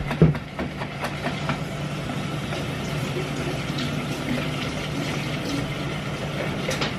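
Pancake batter being whisked by hand in a plastic mixing bowl, with a few light clicks of the whisk against the bowl, over a steady low hum.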